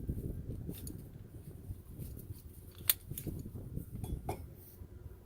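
A few sharp metallic clicks as a Ridgid tube cutter is handled and set onto the copper pipe, the loudest about three seconds in, over a low rumble.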